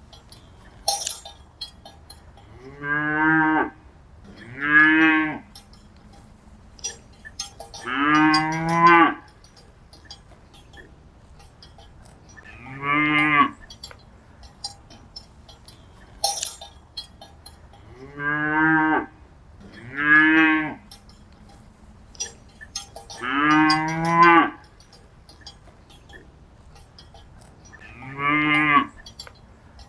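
Cattle mooing: eight calls of about a second each, in pairs and singly, over light high clinking and ticking between the calls.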